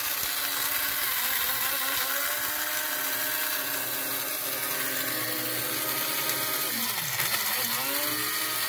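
Electric blade coffee grinder running steadily on whole coffee beans: a motor whine over a high hiss. Near the end the pitch dips and comes back up twice as the lid button is eased and pressed again.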